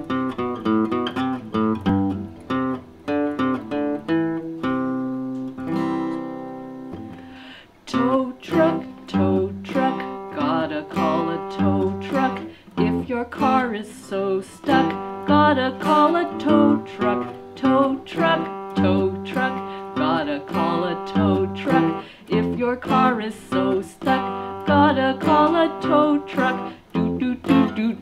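Acoustic guitar played alone: a run of quick picked notes, a chord left to ring about five seconds in, then a steady picked pattern from about eight seconds on.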